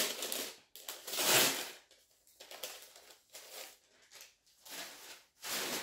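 Brown paper bag being opened by hand: crinkling and rustling paper in several bursts, the loudest a little over a second in.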